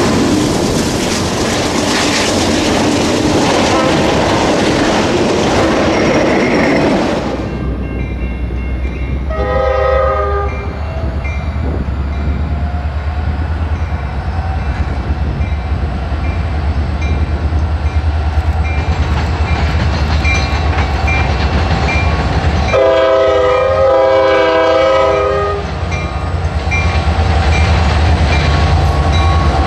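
A freight train of autorack cars rolls past with a dense noise of wheels on rail. Then a Norfolk Southern diesel locomotive approaches with a low engine rumble and sounds its multi-note air horn: a short blast about ten seconds in and a longer one of nearly three seconds past the twenty-second mark.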